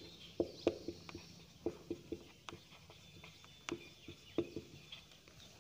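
Marker pen writing on a whiteboard: faint, irregular taps and short scratches as the letters are written.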